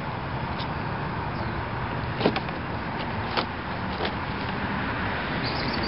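Sharp clicks and taps of hard plastic trim being handled and lifted out of a scooter's inner front panel, about five in all with the loudest about two seconds in, over a steady background hiss.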